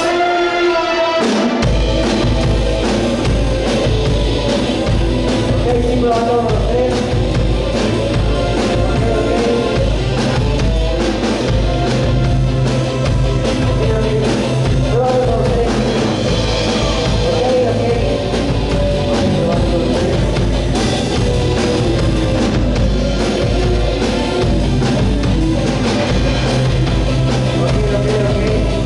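Live rock band playing loud through a PA: drum kit throughout, bass coming in about two seconds in, with a lead melody on top.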